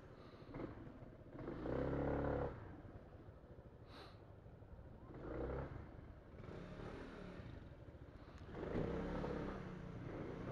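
Kymco Xciting maxiscooter's engine riding at low speed, swelling three times as the throttle is opened: about two seconds in, around five and a half seconds, and again from about nine seconds on.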